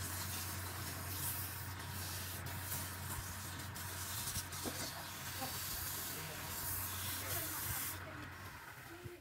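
Wood lathe running with a steady hum while sandpaper is pressed against the spinning turned spindle, making a steady hiss. Both fade away near the end.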